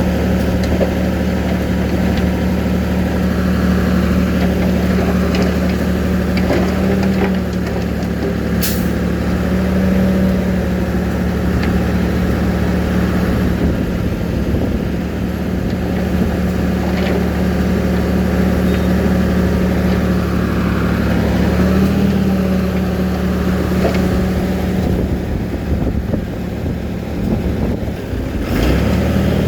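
Diesel engine of heavy earthmoving machinery running steadily under load, its engine speed shifting up and down a few times. A short sharp click about nine seconds in.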